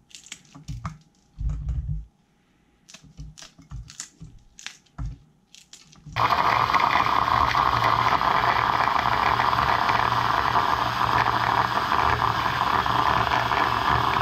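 A scattering of sharp snips and clicks as green Cheongyang chili peppers are cut up with kitchen scissors; about six seconds in, an electric hand blender's chopper attachment starts suddenly and runs steadily, grinding the chopped peppers.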